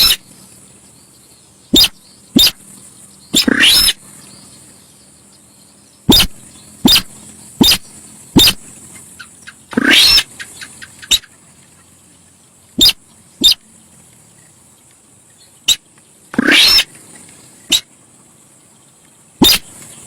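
Sintar sawah bird calling loudly and irregularly, as lure-call audio. Short sharp notes alternate with longer calls that sweep steeply upward, over a steady high hiss.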